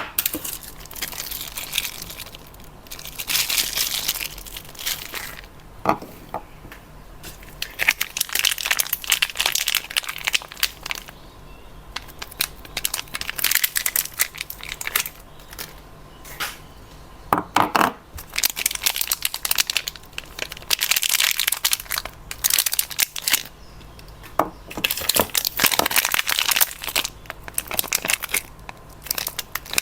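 Soap bar wrappers being torn open and crumpled by hand: bursts of crinkling and tearing that come and go every few seconds.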